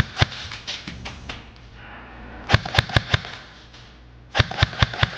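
Airsoft gun firing in short rapid bursts of sharp clicks: a scattered string at the start, about five shots in quick succession a little before the middle, and another quick burst near the end.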